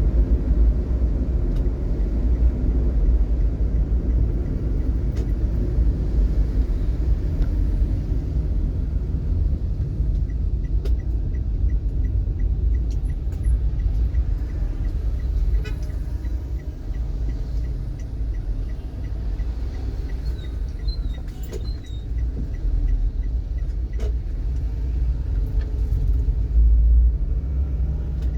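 Low, steady rumble of a vehicle on the move, its road and engine noise filling the low end. From about a third of the way in to past the middle, a light regular ticking runs over it, several ticks a second.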